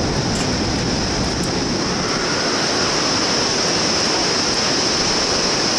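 Steady rushing of whitewater river rapids in the gorge below, an even, unbroken roar with a steady high hiss on top.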